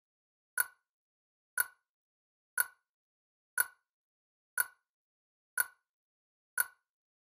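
Countdown timer sound effect: sharp ticks, one each second, seven in all, with dead silence between them, marking off the seconds of a countdown.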